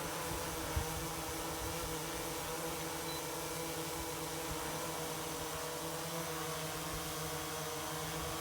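Autel EVO II quadcopter fitted with Autel's low-noise propellers hovering: a steady hum of several even tones, with a faint knock about a second in.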